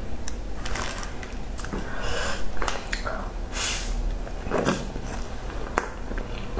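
Close-miked eating: bites into a crusty meat-floss-coated bun, with small crackles and clicks from the crust and mouth. Two short breathy noises come about two and three and a half seconds in.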